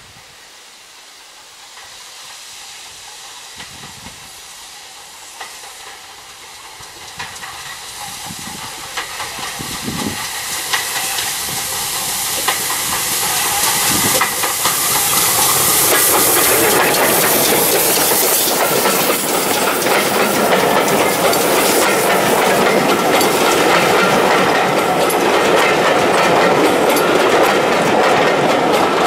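Steam-hauled passenger train approaching, its sound growing steadily louder for about fifteen seconds with the hiss of steam, then the coaches rolling close past with their wheels clicking over the rail joints.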